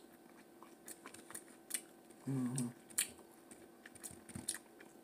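Scattered sharp clicks and crackles as turkey bacon is torn and picked apart by hand over a glass plate, with a brief hum of voice about halfway through.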